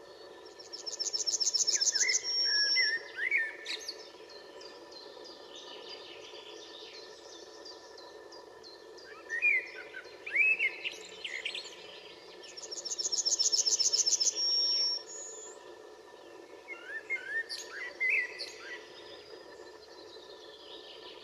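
Male yellowhammer singing its song twice, about a second in and again about 13 seconds in: a fast run of repeated high notes ending in one drawn-out note. Shorter twittering chirps fall between the songs.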